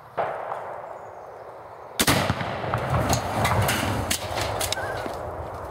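A sharp rifle shot, then about two seconds in a loud blast from a binary exploding target detonating, with a long rumbling roll and a few scattered cracks after it.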